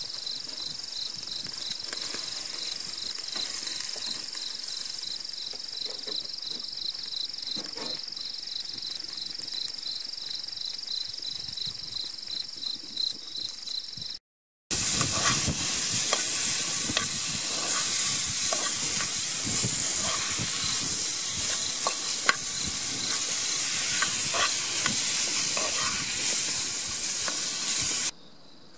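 Crickets chirping in a steady pulse over faint crackling as chicken grills on a wire grate over charcoal. About halfway, after a cut, a louder steady sizzle of food cooking over a wood fire takes over, with scattered clicks of tongs and utensils.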